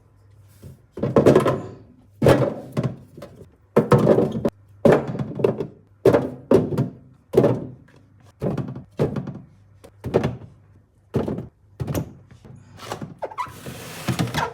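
A series of dull thunks and knocks, roughly one a second at an uneven pace, with a short hiss near the end.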